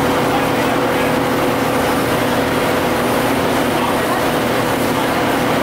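GM TDH-5303 transit bus's Detroit Diesel two-stroke engine running steadily with the bus under way, an even drone that holds one pitch throughout.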